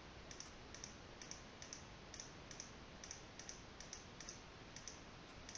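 Faint computer mouse clicks, about three a second, as objects are added one by one to a selection, over a low steady hiss.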